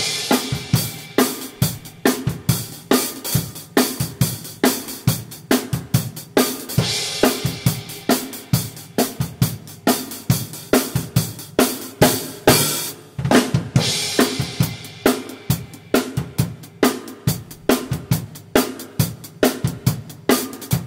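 Acoustic drum kit played on its own in a steady pop groove: kick drum, snare and hi-hat, with cymbal crashes ringing out every few seconds.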